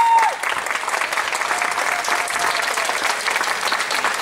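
People applauding steadily. A held steady tone cuts off a moment after the start.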